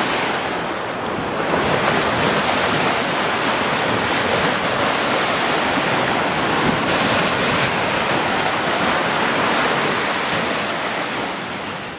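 Ocean surf: small waves washing up onto a sandy beach, a steady rush of noise that fades out near the end.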